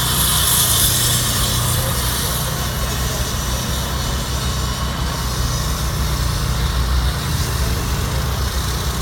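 A vehicle engine idling steadily with a low, even hum, and a hiss that fades out over the first couple of seconds.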